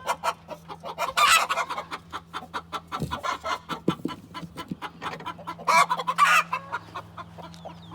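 Chickens clucking rapidly, several short calls a second, with two louder, harsher calls about a second in and around six seconds in.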